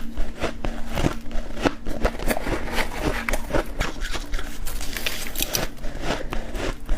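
Freezer frost being chewed close to the microphone: a dense, irregular run of crisp crunches and crackles.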